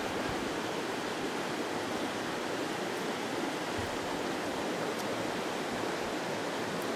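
Steady rush of a shallow stream flowing over rocks.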